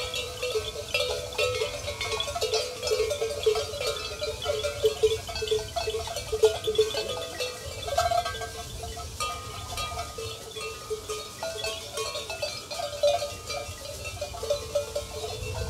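Bells on a grazing flock of sheep clinking and clanking continuously, many small overlapping rings.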